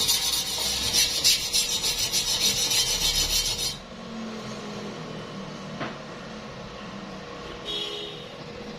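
Stick-welding arc crackling and hissing on thin steel, a dense run of fine crackles that cuts off abruptly about four seconds in as the arc is broken. After that only a low steady hum remains, with a single sharp click a couple of seconds later.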